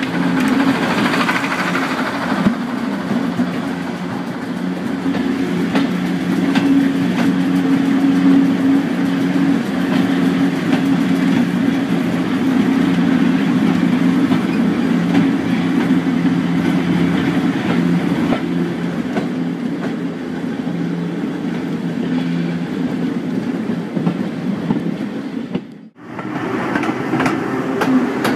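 Southern Region diesel-electric multiple unit ('Thumper') running steadily with a low engine hum as the train moves slowly over the rails, with occasional clicks from the wheels over rail joints. The sound cuts out briefly about two seconds before the end.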